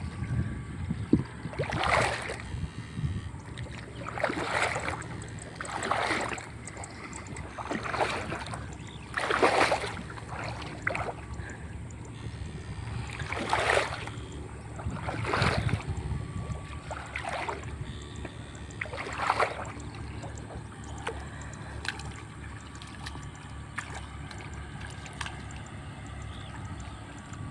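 Water splashing and swishing, about ten times, one every one and a half to two seconds, dying away after about twenty seconds, over a steady low rumble and a faint steady high-pitched tone.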